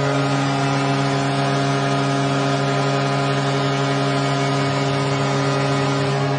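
NHL arena goal horn sounding one long, steady blast for a home-team goal, cutting off abruptly near the end.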